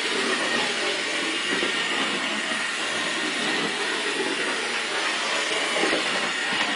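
O gauge model locomotive running on track laid on a wooden baseboard: a steady whirring rumble of its electric motor and wheels on the rails, with a faint high whine.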